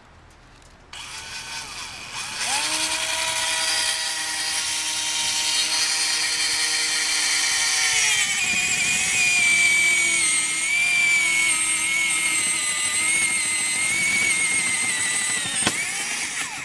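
Handheld electric drill with a spade bit boring a hole through the aluminum inner shell of a box oven: the motor starts about a second in and whines steadily under load, shifts slightly in pitch about halfway through, and stops near the end, just after a sharp click.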